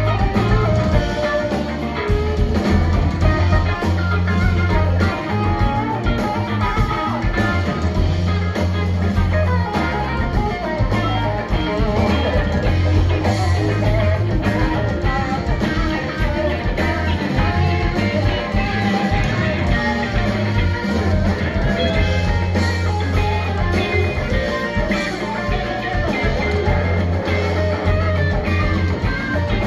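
Live rock band playing: electric guitars, bass guitar and drums, with a harmonica cupped to a vocal microphone carrying melodic lines over the band.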